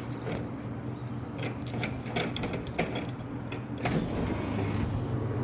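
A steady low mechanical hum with scattered clicks and knocks over it, and a brief high whistle about four seconds in.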